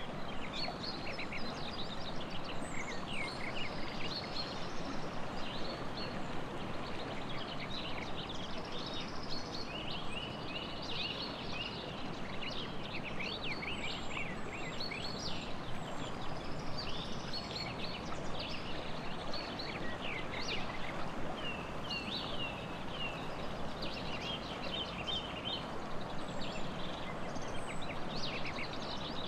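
Songbirds chirping and trilling throughout, many short calls overlapping, over the steady rush of a river.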